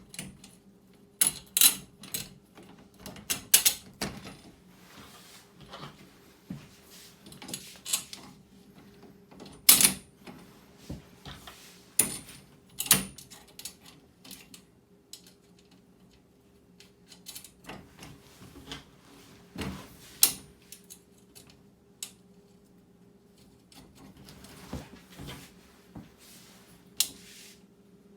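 Small metal screws and nuts clinking and tapping against the cart's frame as they are fitted and hand-threaded, in scattered sharp clicks with pauses between.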